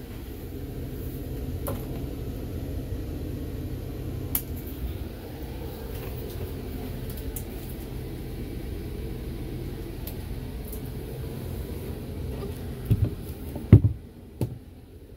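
Steady low hum of a parked van running, heard inside its cabin. Several knocks come near the end, and the hum then falls away.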